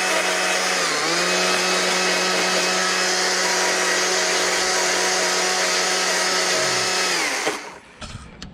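Handheld power carving tool running steadily on wood. It dips in pitch briefly under load about a second in, then stops near the end.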